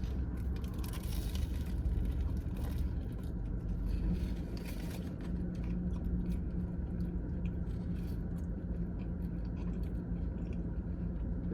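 Someone chewing a mouthful of bagel with cream cheese, with many small wet mouth clicks over a steady low hum.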